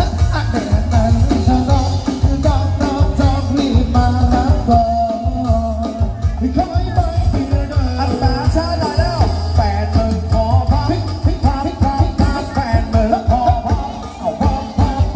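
Band music with a singer over a steady bass and drum beat.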